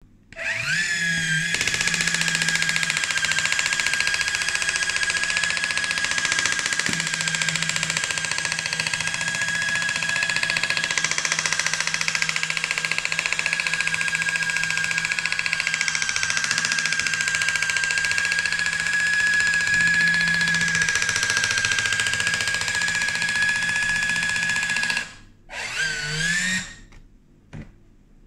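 Vonne automatic can opener cutting around the rim of a tin can: a steady electric motor-and-gear whine that spins up at the start and runs evenly for about 24 seconds, then cuts off. It runs again briefly for about a second near the end.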